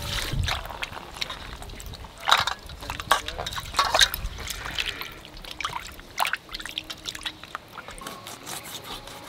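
Hands washing whole hilsa fish in a steel bowl of water: irregular splashing, sloshing and dripping as the fish are rubbed and turned.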